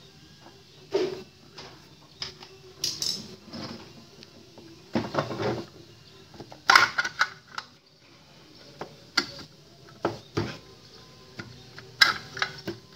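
Sheet-metal case of an SWR meter being unscrewed and pulled apart by hand: scattered metal clicks, scrapes and knocks, the loudest a few sharp clinks about a second in, around five to seven seconds in and near the end.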